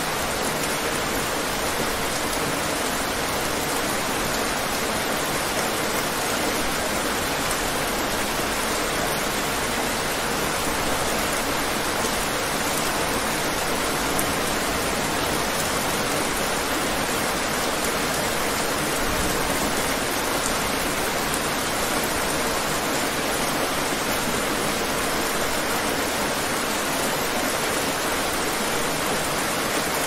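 Steady rain, an even, unchanging hiss with no single drops standing out.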